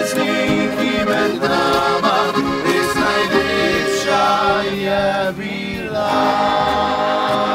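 Slovenian narodno-zabavna (folk-pop) band music led by a button accordion, with guitar and double bass backing.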